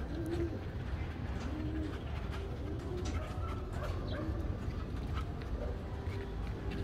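Pigeons cooing, a string of low, repeated coos.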